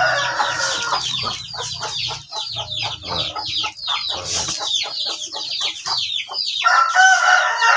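Chickens calling: a quick run of short, high, falling chirps throughout, with a longer drawn-out call near the start and again near the end.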